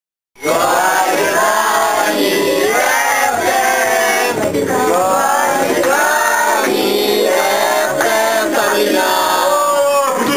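A group of people singing together, many voices at once, loud and continuous; it starts abruptly just after the start.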